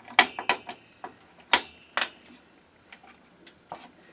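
Plastic push-pin fasteners of an Intel stock CPU cooler being pressed down through the motherboard holes and snapping into place, sharp clicks in two pairs during the first two seconds, then a few fainter ticks: the cooler being locked down.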